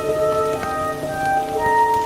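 Slow classical music with sustained notes, played over steady rain.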